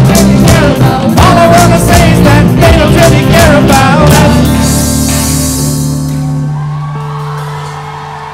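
Live student rock band with drum kits and singers playing hard, with steady drum hits under the voices. About four seconds in, the band stops on a final held chord with a cymbal crash that rings and slowly fades.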